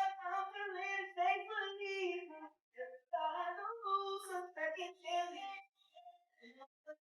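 A high voice singing long, held notes in phrases, with short pauses about two and a half seconds in and again near the end; no instruments are heard.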